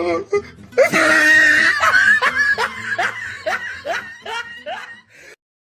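A person's laugh: a loud, shrill burst of laughter that breaks into a run of short, rhythmic gasping laughs, about three a second, growing fainter until it cuts off.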